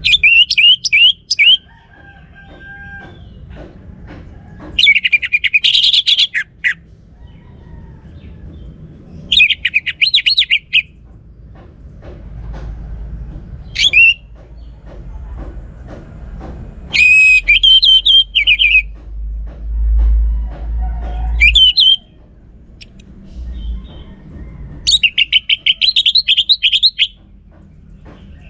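Orange-headed thrush singing: about seven loud phrases of rapid, repeated whistled notes, each a second or two long and a few seconds apart. A low rumble swells in the background for a few seconds around the middle.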